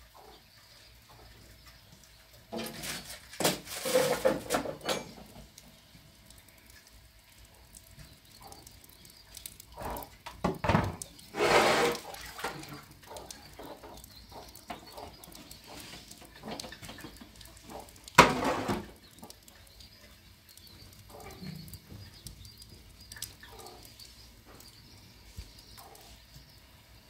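Metal cooking pots, lids and a kettle clattering and knocking together as they are handled and stacked, in three bunches: one about three seconds in, another around eleven seconds, and a single sharp clank near eighteen seconds that is the loudest.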